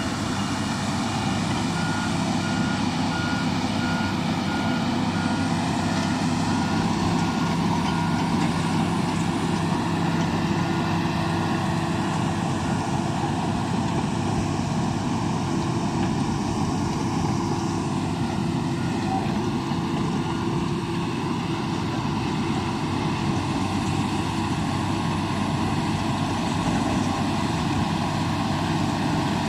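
Shantui DH17 crawler bulldozer's diesel engine running steadily as it works, with a reversing alarm beeping repeatedly through roughly the first third before it stops.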